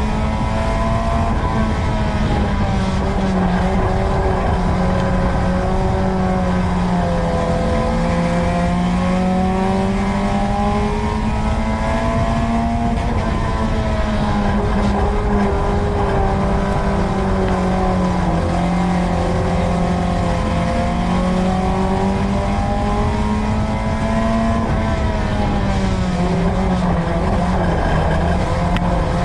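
Dirt-track race car engine at high revs, heard from inside the car. The pitch falls and climbs again every few seconds as the car laps the oval, over steady tyre and wind noise.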